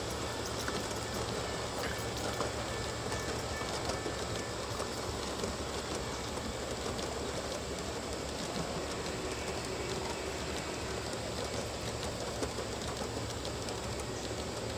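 G-scale model passenger cars rolling along the track: a steady rushing of wheels on rails with many faint clicks.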